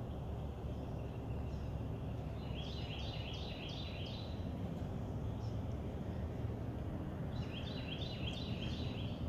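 Chevrolet 1500 pickup's engine idling with a steady low rumble. A songbird sings two short runs of quick repeated notes over it, one about three seconds in and one near the end.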